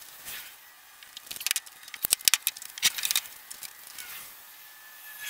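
Footsteps on dry straw-covered ground: an irregular run of crisp crackles and clicks, thickest from about one to three seconds in.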